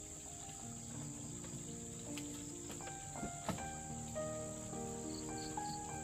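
Insects chirring in a steady, unbroken high-pitched drone, under soft background music of slow, held notes. A few faint clicks come through in the middle.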